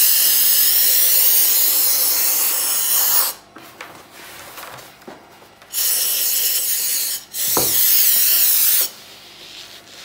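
Compressed-air blow gun hissing in three blasts: a long one that stops about three seconds in, then two of about a second and a half each, back to back, from about six seconds in, blowing thin acrylic paint across a canvas.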